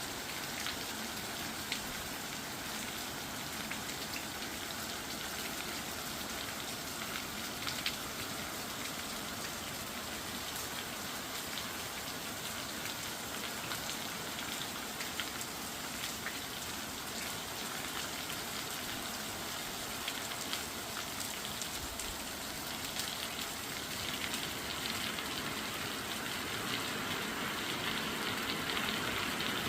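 Heavy downpour of rain: a steady dense hiss with scattered sharper drop hits, growing a little louder near the end.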